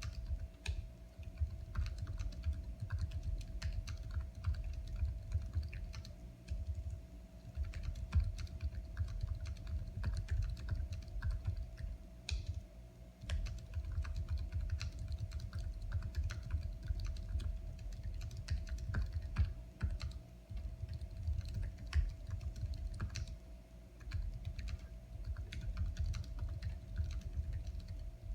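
Steady, fast typing on a computer keyboard, a quick run of key clicks with a few short pauses, over a faint steady hum.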